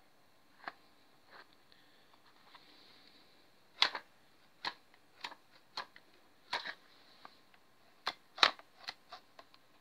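Sharp metal clicks and clacks from a hand-held vine tape-tying tool being handled and its handles squeezed, about a dozen at irregular intervals, the loudest about four seconds in and again about eight seconds in.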